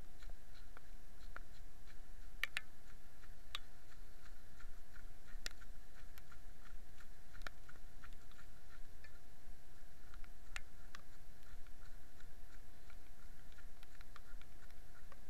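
Muffled handling noise from a small camera carried on a run down a wet trail: a low rumble and a faint steady hum, with irregular clicks and taps on the camera body.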